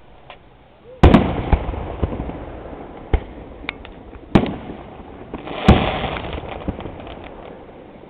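Fireworks going off: a string of sharp bangs, the loudest about a second in and again near six seconds, each trailing off, with smaller crackling pops in between.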